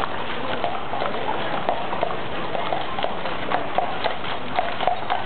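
Hooves of several horses clip-clopping on an asphalt road as a horse-drawn carriage and mounted riders pass, many sharp, uneven hoof strikes a second.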